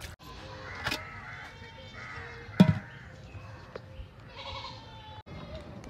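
Animal calls, probably farm livestock, come several times. A sharp knock sounds about two and a half seconds in, the loudest sound here, and a lighter knock comes about a second in.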